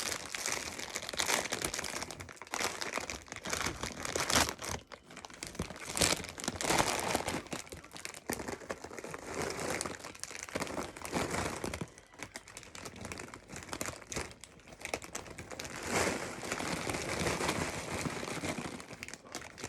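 Plastic potato-chip bags crinkling and rustling in the hands, with uneven swells, as the chips from one open bag are tipped into the other to combine them.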